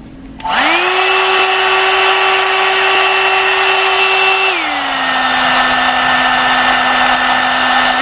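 A One Step hot-air brush hair dryer and styler is switched on, and its motor spins up to a steady, loud whine about half a second in on the low setting. About four and a half seconds in, the dial is turned to middle. The motor pitch drops and the noise eases a little, then climbs back up right at the end as it goes to high.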